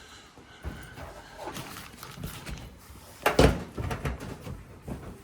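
Scattered knocks and clunks of something being handled, with one louder thump a little past three seconds in.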